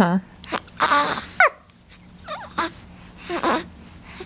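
Young infant cooing and squealing: about four short high-pitched vocal sounds with gliding pitch, the clearest about a second in.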